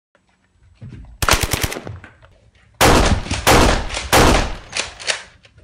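Rapid automatic gunfire: a quick string of about six shots a little over a second in, then three long, loud bursts close together.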